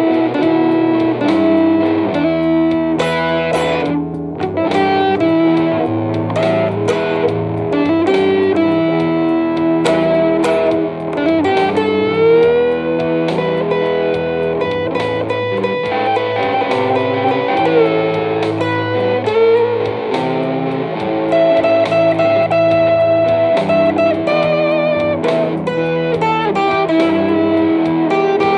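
Telecaster-style electric guitar played through a small combo amp: a blues line of picked single notes and chords, with several notes bent up in pitch.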